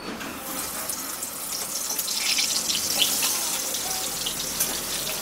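Rohu fish head pieces frying in very hot mustard oil in a steel kadai: a dense sizzle full of crackling spits that starts as the fish goes into the oil and grows louder about two seconds in.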